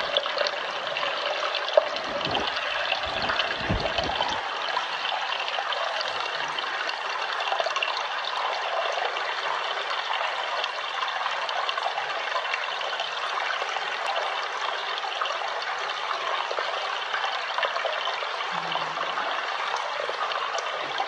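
Water trickling and running steadily inside a limestone cave, an even splashing hiss with no pauses. A few dull low thumps in the first four seconds.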